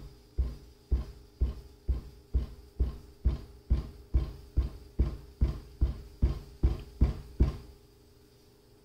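Glass baking dish full of cake batter being tapped down on the counter, a steady run of dull thumps about two a second that stops near the end. The tapping knocks the air bubbles out of the batter.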